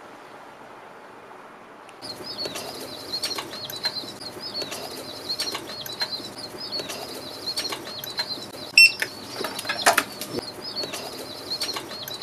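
Baby chicks peeping inside a ventilated cardboard shipping box: many short, high cheeps overlapping without pause, starting about two seconds in. A short beep sounds about nine seconds in.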